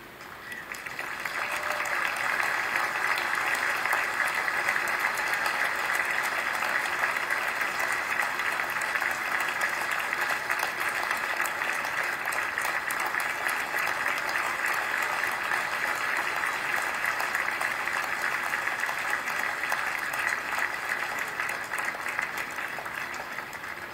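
Ballpark crowd applauding steadily, for an injured player being helped off the field. The applause swells in over the first two seconds and fades away near the end.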